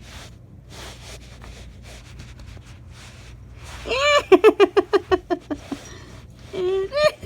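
An angry cat growling and yowling: a drawn-out yowl about four seconds in that breaks into a rapid pulsing growl, then a short rising yowl near the end. Faint rustling before it.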